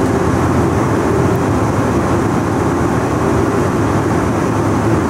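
Steady rumble of an Airbus A320's engines and airflow heard from inside the passenger cabin, with a faint steady hum over it.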